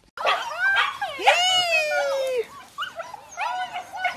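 Husky puppies yipping and whining in a string of short calls, with one long whine about a second in that slides down in pitch.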